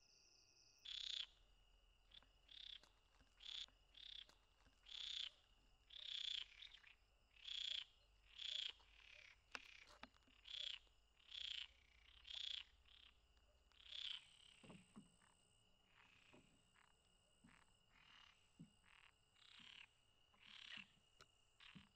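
Frogs calling at night: a faint, regular series of short croaks, about one a second, over a steady insect trill.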